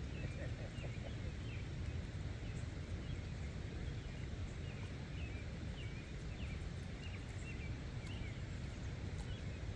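Short, scattered chirping calls from small animals, a few every second, over a steady low outdoor rumble.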